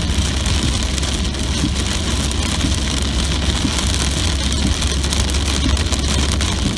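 Heavy rain pelting a moving car, heard from inside the cabin, over the steady low rumble of the car and its tyres on the soaked road. The noise stays level throughout.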